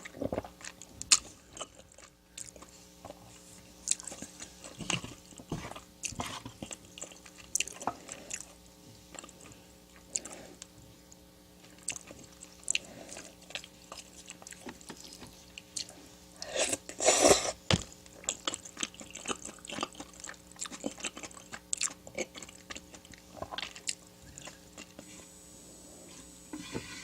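A person eating close to the microphone: chewing and biting with many short, sharp mouth clicks, and one louder noisy burst lasting about a second roughly two-thirds of the way through.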